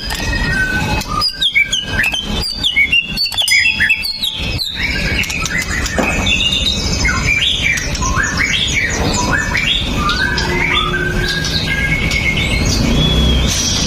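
White-rumped shama singing a fast, varied song of sharp chirps and whistled notes that rise and fall.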